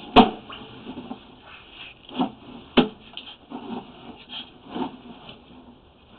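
Irregular knocks and bumps with faint scraping, a few of them sharp, as a sewer inspection camera on its push cable is fed through a toilet flange into the drain pipe.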